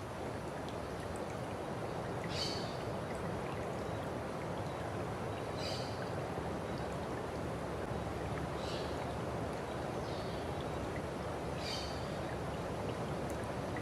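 Water of a stream flowing steadily, with a short high chirp repeating about every three seconds.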